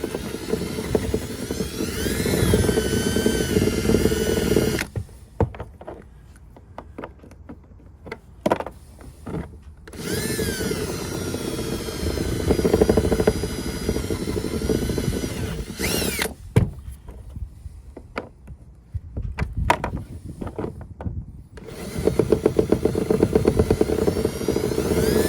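Power drill turning a step bit through the plastic hull of a kayak to widen a hole. It runs in three longer spells with short trigger blips between, the motor's whine rising each time it spins up.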